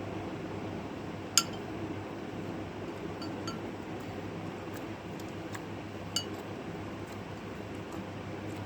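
Two sharp clinks of hard objects knocking together, about five seconds apart, each with a brief ring, and a few fainter ticks between, over a steady low hum.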